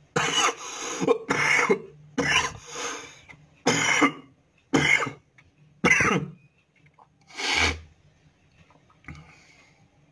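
A man coughing in a fit of repeated, forceful coughs with throat clearing, the coughs thinning out and stopping about eight seconds in.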